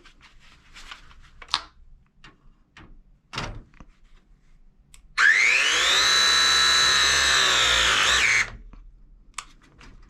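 Milwaukee M18 battery press tool running one press cycle on a pipe fitting. Its motor whine rises in pitch about five seconds in, holds steady for about three seconds, then winds down abruptly. Before it come light clicks and knocks as the tool's jaws are set on the fitting.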